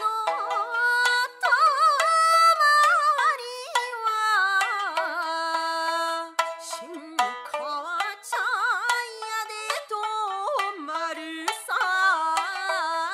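A woman singing a Japanese folk song (min'yō) in a wavering, ornamented voice, with sharp plucked shamisen notes behind and between her phrases.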